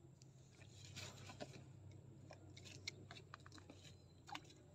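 Near silence: a few faint, scattered clicks over a low steady hum.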